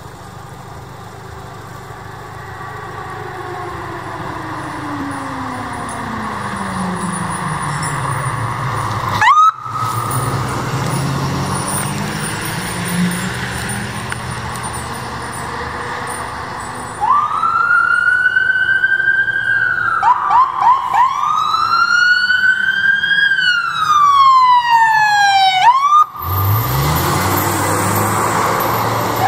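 Electronic sirens of a fire department ambulance and a forestry truck on an emergency response. A siren grows louder as it approaches, then wails and yelps, each sweep rising to a high pitch and falling away, with quick yelp chirps in between. Near the end a truck engine rumbles past.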